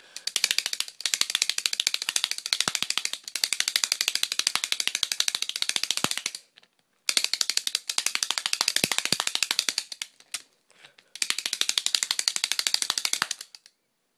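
Plastic hand clapper noisemaker, its three layered plastic hands slapping together as it is shaken, giving a rapid clacking rattle. It comes in three runs: a long one of about six seconds, then two shorter ones after brief pauses.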